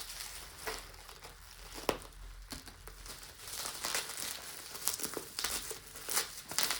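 Packaging crinkling and rustling as it is handled and opened, in irregular crackles.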